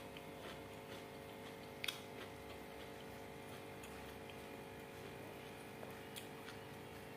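Quiet eating by hand: fingers scooping rice off a banana leaf and paper wrapper, with light scattered clicks and one sharper click about two seconds in, over a steady faint hum.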